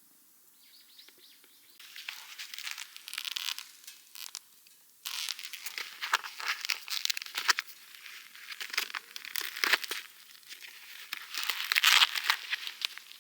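Crinkling and rustling of a bag or wrapping being handled close up, in irregular bursts that start about two seconds in and are loudest near the end.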